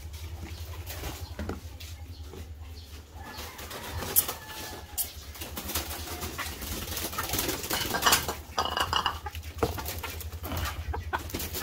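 Poultry being fed: scattered clattering and sharp knocks from the feeding gear, busiest in the second half, with chickens and other poultry calling.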